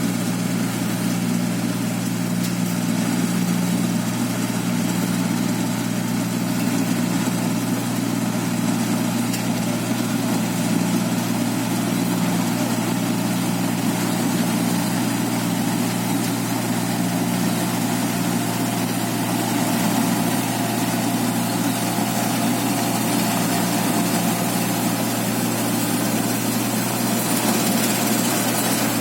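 A paddy (rice) machine running with a steady engine drone that holds the same pitch and level throughout.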